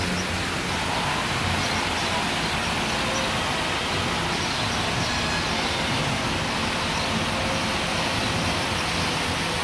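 Steady rushing of running water from the garden's fountains and cascades, an even hiss that does not rise or fall.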